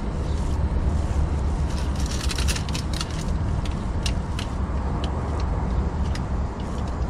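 Steady low rumble, with scattered light clicks and crackles from handling at the transmission drain plug of a Subaru WRX STI as its gear oil is being drained; the clicks cluster about two to three seconds in and recur a few times after.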